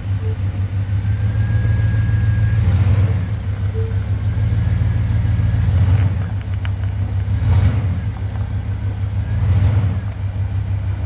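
Truck engine running steadily under load while towing a travel trailer that is a little heavy for it.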